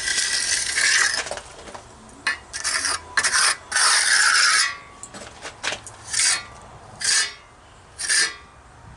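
A steel trowel scraping and smoothing fresh wet cement: a run of rasping strokes, longer in the first half, then short single strokes about a second apart.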